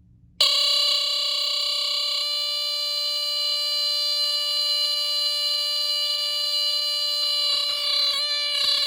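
Sears 57002 smoke alarm sounding a steady, unbroken high-pitched alarm tone, set off by canned smoke-detector test spray. It starts about half a second in, with a few faint knocks near the end.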